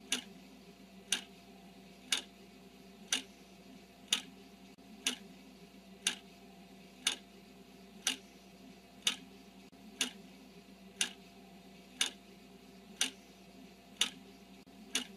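Ticking clock sound effect: one sharp tick each second, timing the answer countdown of a quiz.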